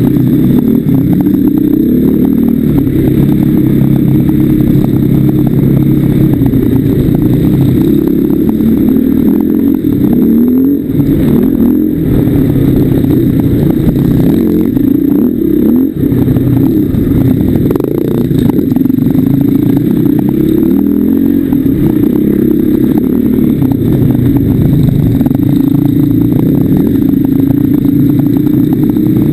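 Enduro dirt bike's engine, an orange KTM, running hard on a rough trail, its revs rising and falling over and over as the throttle is worked.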